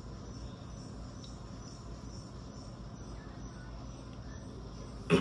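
A faint, evenly repeating high chirp over a steady low hum, like a cricket. A short loud burst comes right at the end.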